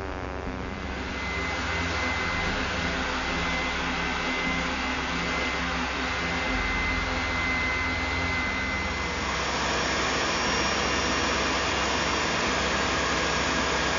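Power sanders running in turn on oak: a spindle sander, then a handheld random-orbit sander from about a second in, then a belt sander from about nine seconds in. Each is a steady motor whine with the hiss of abrasive on wood.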